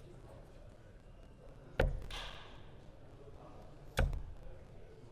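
Two darts striking a Winmau Blade 6 bristle dartboard, two sharp thuds about two seconds apart.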